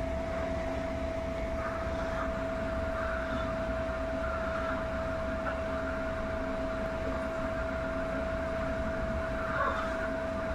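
Steady room hum: one constant mid-pitched tone over an even low rumble, the sound of a machine running without change.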